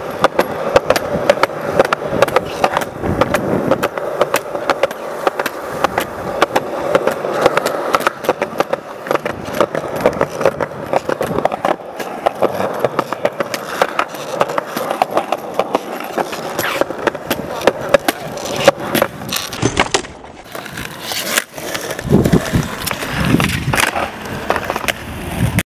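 Skateboard wheels rolling on concrete with a steady rumble, broken by many sharp clacks of the board striking the ground. Near the end the rumble turns lower.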